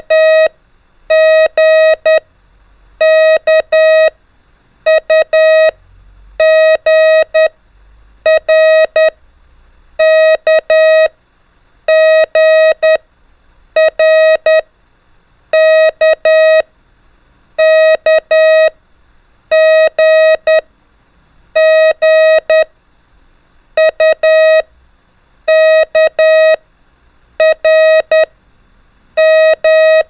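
Morse code tone at about 650 Hz sending single letters (R, K, U and G) for copying practice, one three-element letter about every two seconds.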